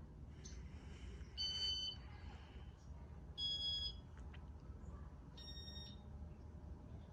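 Three short electronic beeps about two seconds apart, each a little higher in pitch than the last, from the Casablanca 19th Century ceiling fan's control running its demo mode. A steady low hum runs beneath.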